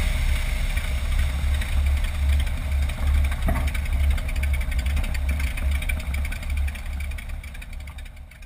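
Seaplane's propeller engine idling on the water, a low uneven throb under a hiss of air past the microphone, fading out near the end.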